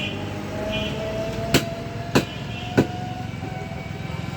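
Three sharp chops, about two thirds of a second apart, from a butcher's cleaver striking beef and bone, over a steady low rumble of background traffic or machinery.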